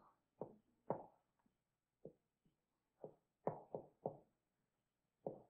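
Dry-erase marker knocking and tapping against a whiteboard as words are written: a string of short, faint knocks, several in quick succession about three and a half seconds in.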